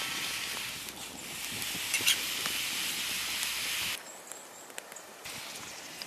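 Pot of kimchi stew boiling over a wood fire, giving a steady hiss with a few light clicks about two seconds in. The hiss drops quieter about four seconds in.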